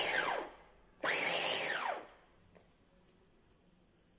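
Orpat 250 W electric vegetable chopper's motor chopping carrot: it winds down with a falling whine, is pulsed again for about a second, and spins down once more.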